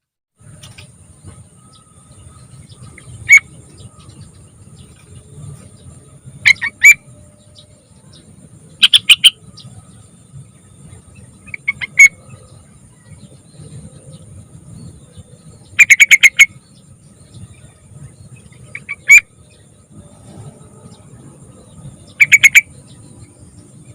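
Yellow-vented bulbul (trucukan), a young bird, giving short bursts of quick, bubbly chirping notes every few seconds.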